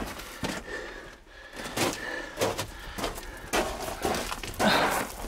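Footsteps crunching and scuffing on loose rock rubble, an uneven series of short sharp knocks and crunches with a louder scuff near the end.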